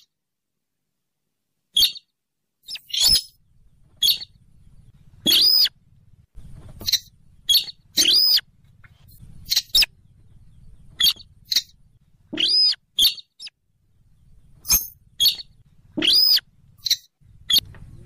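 Buff-banded rail calling: a run of short, sharp, high-pitched squeaky calls, many with an arched, rise-and-fall note, repeated irregularly about every second, with a faint low hum between calls.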